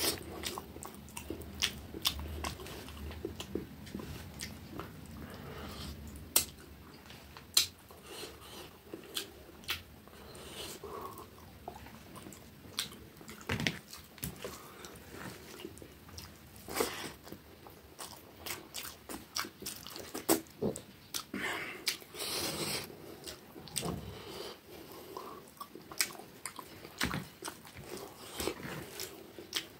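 Close-miked eating sounds: wet chewing and lip smacking as a person eats rice and curry with his hand, with irregular sharp smacks and clicks.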